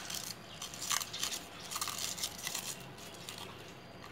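Crisp rustling and crunching of fresh lemongrass stalks being pushed into the mouth of a whole fish, in short irregular bursts that die down after about three seconds.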